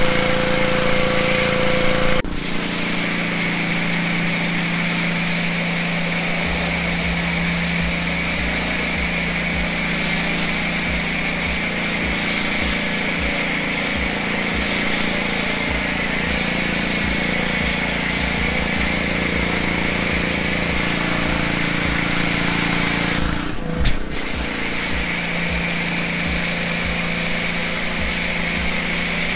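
Pressure washer running with a foam cannon on the wand, spraying snow foam: a steady pump drone with a steady hiss of spray. The sound changes abruptly twice, about two seconds in and near the end.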